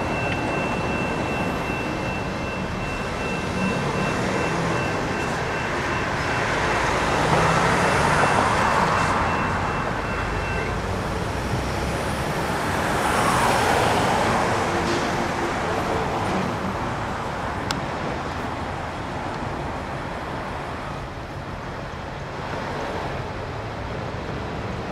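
General Signals Type 2 electronic crossing bells ringing a steady tone, cutting off abruptly about ten seconds in as the crossing's activation ends. Road traffic runs throughout, with two louder passes of vehicles driving over the crossing.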